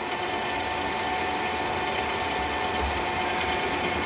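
Graziano SAG 17 three-phase lathe running with its chuck spinning: a steady mechanical hum from the motor and headstock gearing, with an even whine over it.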